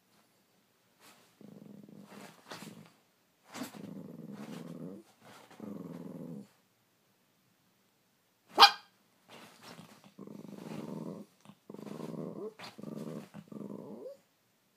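Small dog growling in a string of long growls about a second each, with short pauses between them, and one sharp, loud yap a little past the middle.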